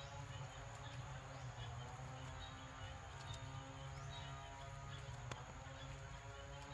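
Faint forest ambience: soft bird chirps and insect calls over a low steady hum, with a single click about five seconds in.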